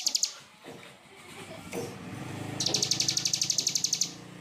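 Songbird giving rapid, harsh "tembakan" trills of evenly repeated high notes, about 14 a second: one trill ends just after the start, and a second runs for about a second and a half from about two and a half seconds in. Under the second trill there is a low steady drone.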